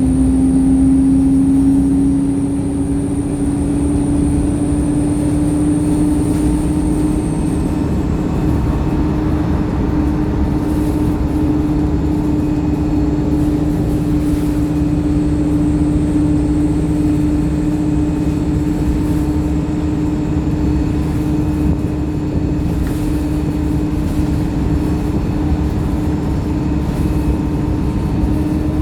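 Wright StreetLite single-deck bus heard from on board while under way: engine and drivetrain running over a steady low rumble, with a strong whine that climbs slightly in pitch over the first few seconds and then holds level. The title calls the engine tired.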